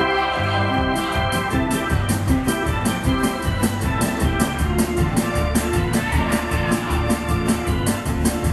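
Upbeat music with a steady beat and a bass line. A quick, regular cymbal ticking comes in about a second in.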